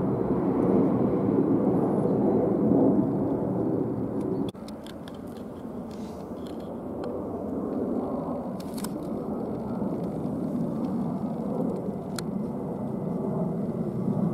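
Jet engine noise from an Airbus A320-214's CFM56 engines as the airliner climbs overhead, a steady rumble. It cuts off abruptly about four and a half seconds in. A fainter distant rumble then slowly builds, with a few sharp clicks.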